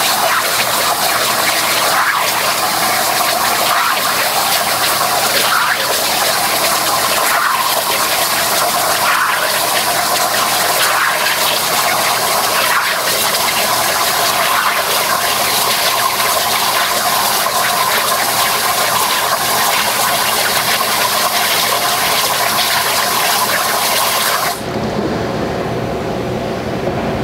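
Steady, loud rushing hiss from the CNC plasma cutting table just after a cut, with a faint steady tone. It cuts off suddenly about 25 seconds in.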